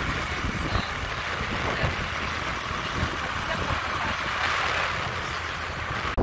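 A moving motor scooter's engine and road noise, with wind rushing over the microphone in uneven low gusts.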